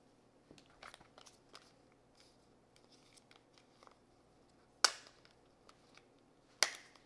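Makeup products and tools being handled: scattered soft taps and clicks, then two sharp clicks about two seconds apart.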